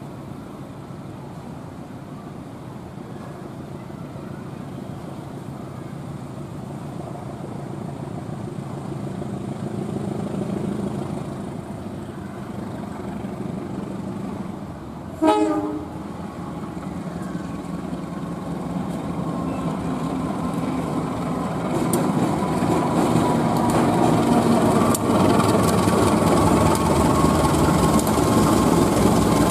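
KAI CC201 diesel-electric locomotive approaching on the track, its engine growing steadily louder. It sounds one short horn blast about halfway through, then passes close with loud engine noise and clicking wheels.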